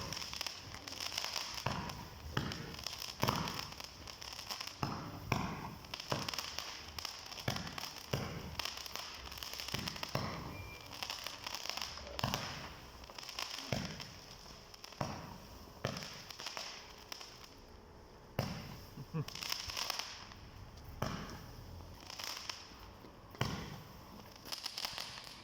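Small fireworks going off in a long series of pops, roughly one or two a second, with a crackling hiss between them.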